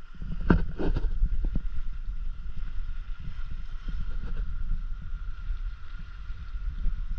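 Wind rumbling on the microphone of a camera out on a kayak, with two short, sharp noises about half a second and a second in.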